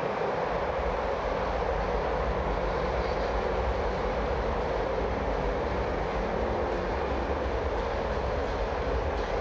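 Football stadium crowd making a steady, even roar.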